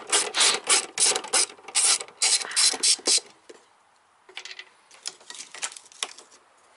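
Hand ratchet wrench clicking in quick repeated strokes as a 10 mm bolt is backed out. The clicking stops about three seconds in, leaving a few faint clicks and knocks.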